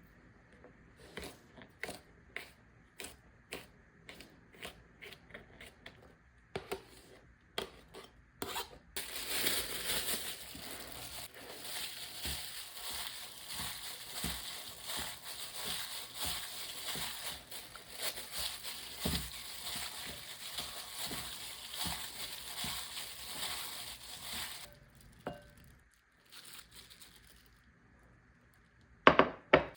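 Food sizzling in a hot frying pan: a steady hiss that starts abruptly about nine seconds in and cuts off about fifteen seconds later. It is preceded by a string of sharp kitchen knocks and followed by a single loud clack near the end.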